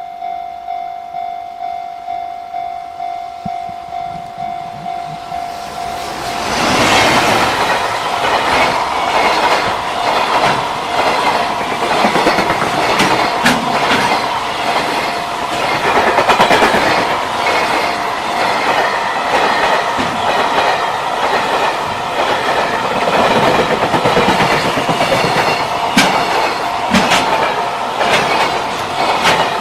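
Japanese level-crossing alarm ringing with a steady electronic tone pulsing about twice a second, then about six seconds in a JR Freight freight train passes close by, a dense rush of wheel and rail noise with sharp clacks over the rail joints that drowns out the bell.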